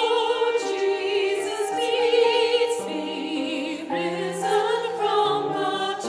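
Adult mixed choir singing a hymn in parts, the voices held on sustained notes with vibrato and moving to a new chord every second or so.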